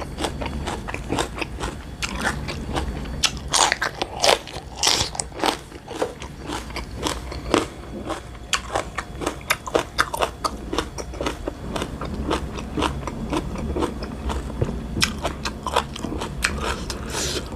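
Close-up eating sounds: crisp crunching bites and chewing of fresh vegetables, an irregular run of several small crunches a second.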